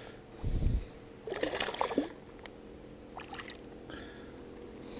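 A small largemouth bass splashing at the surface as it is lifted out of the water beside a kayak: a dull thump about half a second in, then a short splash, followed by a few faint drips.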